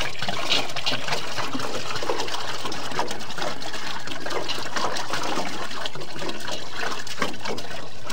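Water pouring steadily from a large plastic water bottle into a metal cooking pot, filling it.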